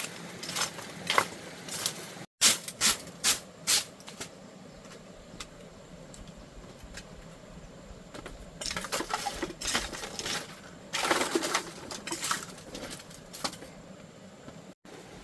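Dishes and utensils clinking and clattering in irregular knocks, in two spells: one in the first few seconds and another starting about nine seconds in.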